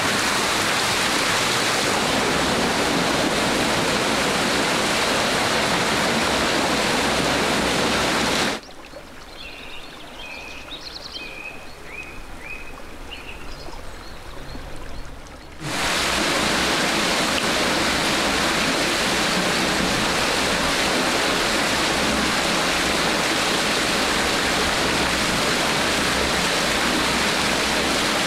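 Water pouring and churning in a wooden fulling trough, where a Hutsul wool blanket is tumbled to felt it: a steady, loud rush. About nine seconds in, a cut brings a much quieter creek with birds chirping. About seven seconds later the rush of the trough returns.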